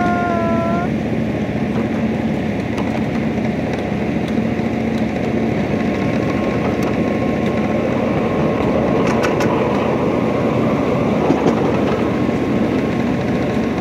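Small passenger train running along its track, heard from aboard a car: a steady rumble of wheels on rails. A pitched train whistle is ending about a second in.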